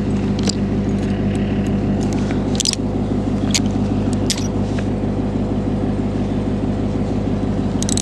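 Steady low hum of an idling vehicle engine, with a few short metallic clicks and jingles and cloth brushing against the body-worn camera.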